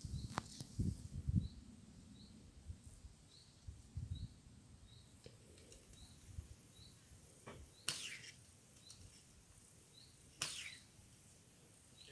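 Two faint, sharp pops of a suppressed Silverback SRS spring airsoft rifle firing, about two and a half seconds apart, each trailing off in a short falling hiss.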